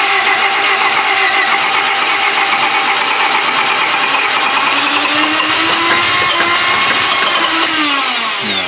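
1995 Honda Civic four-cylinder engine cranking on the starter without catching, a fast steady churn with a high starter whine that winds down near the end. The car cranks but won't fire; the father suspects it is not getting fuel.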